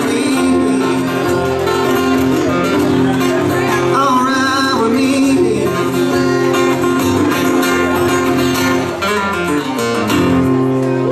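Live band music: acoustic guitars strummed over electric keyboard chords, with some singing, carrying through the close of a country-rock song.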